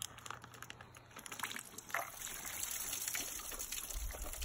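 Water trickling and gurgling in a stainless steel pot as cut plastic mushroom-kit bags are pressed down into it to soak, with light crinkling of the plastic.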